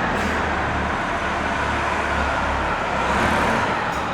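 Bus station ambience: buses idling with a steady low engine rumble under a general wash of noise, with a short hiss near the start and another near the end.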